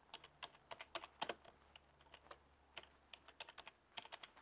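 Faint computer keyboard typing: an irregular run of quick keystroke clicks as a word is typed into a text box.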